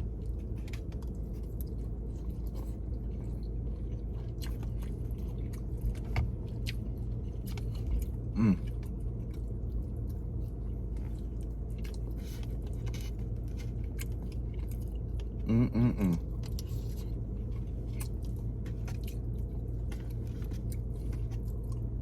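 Close chewing and mouth sounds of a man eating jerk chicken and cabbage, with many small clicks and smacks, over a steady low hum inside a car. Two short hums of the voice come about eight and sixteen seconds in.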